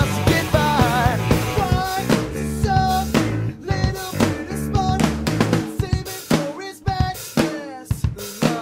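Rock song with a drum kit beat of bass drum and snare under a wavering melody line.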